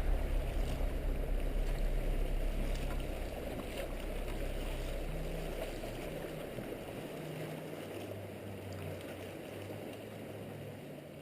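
Sea water sloshing and gurgling against a kayak, with a few faint knocks, slowly growing quieter.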